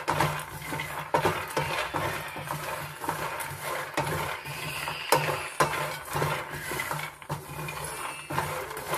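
Raw peanuts being stirred with a spatula in a nonstick pan while they roast: the nuts rattle and click against the pan and the spatula scrapes the pan's base in irregular strokes.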